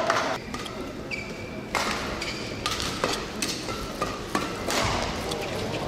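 Badminton rackets striking the shuttlecock in a fast men's doubles rally: a string of sharp cracks, roughly one every half second to a second.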